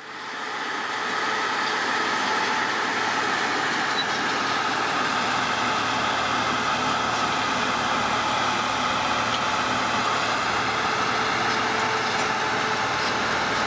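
Crawler bulldozer's diesel engine running steadily as it pushes a loaded boat trailer, fading in over the first second or so.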